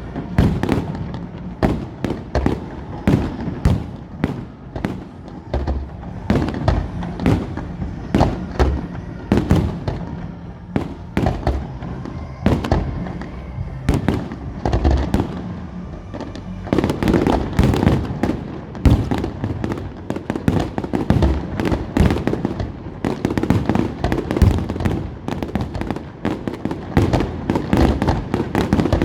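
Firework display: rapid, overlapping bangs and crackles of shells bursting, coming thicker and louder for the last dozen seconds.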